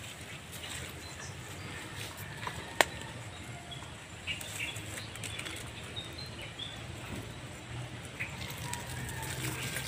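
Rustling in leaf litter and undergrowth, with one sharp snap about three seconds in and a few faint bird chirps a second or so later.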